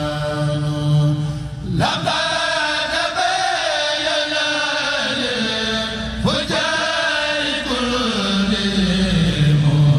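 A Senegalese Mouride kourel chanting a khassida in unison. A long low held note gives way about two seconds in to a new phrase that rises and winds back down, another phrase begins a little past the middle, and the line settles onto the low held note again near the end.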